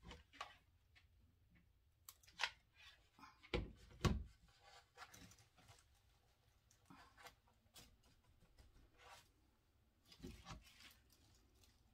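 Light rustling and scraping from craft materials being handled, with two low thumps about three and a half and four seconds in and another just after ten seconds.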